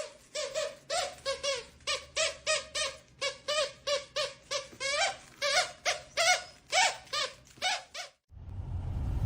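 A dog giving short, high-pitched whining yips over and over, about two a second, each rising and falling in pitch; they stop abruptly near the end.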